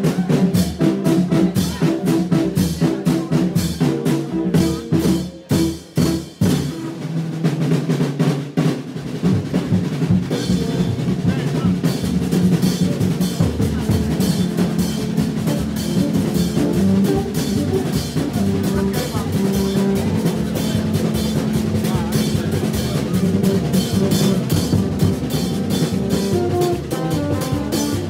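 Haitian rara band playing: vaksen tube trumpets of plastic pipe and metal horns hoot short repeated low notes in an interlocking pattern over drums and percussion. The music breaks off briefly a few times in the first six seconds, then runs on steadily.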